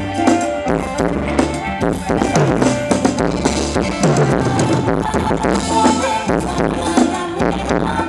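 Live band playing a Thai ramwong dance tune, with a steady bass line, drum kit and percussion.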